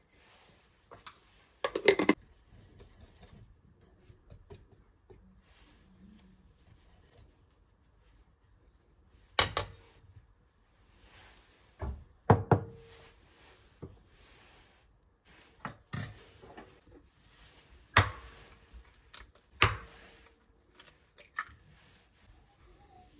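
Scattered knocks and clinks of kitchen utensils and dishes being handled: a dozen or so separate strikes, a few of them ringing briefly.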